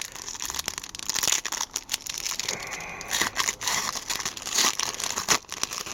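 Wrapper of an Upper Deck hockey card pack being torn open and crinkled: continuous crackling and rustling with many small sharp crinkles.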